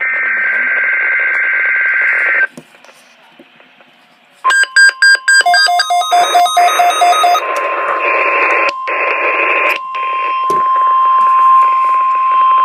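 NOAA Weather Radio test signalling heard through a radio receiver. First a SAME digital header burst, a harsh two-tone data screech that stops about two and a half seconds in. After a short hiss, the steady 1050 Hz warning alarm tone starts about four and a half seconds in and holds over static, with a quick run of electronic beeps at its start.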